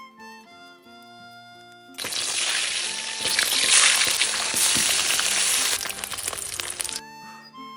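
Food sizzling loudly in a hot pan, starting suddenly about two seconds in and cutting off about five seconds later, over soft harmonica and guitar music.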